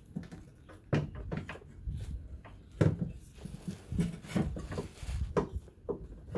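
Irregular knocks and clunks of a new fuel filler neck and its fittings being handled and worked into place, about a dozen sharp hits of varying strength.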